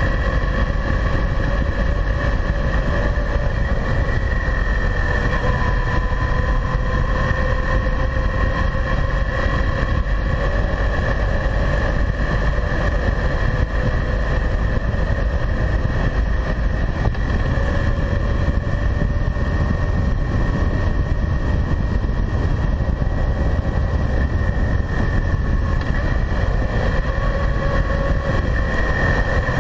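Kawasaki W800's air-cooled parallel-twin engine running at a steady cruise on the open road, with heavy wind rumble on the microphone and a steady whine that wavers only slightly in pitch.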